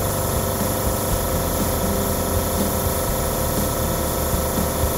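Small Badger airbrush compressor running steadily under the hiss of a dual-action airbrush spraying paint onto a model locomotive shell.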